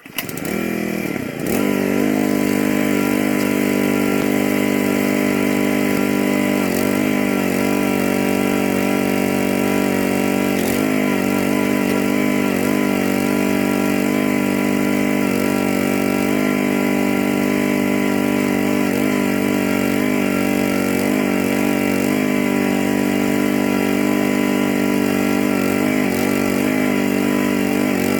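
Small gasoline engine of a towable backhoe running at high speed while it digs, coming up to speed in the first two seconds, then holding steady with brief dips in pitch several times as the digging loads it.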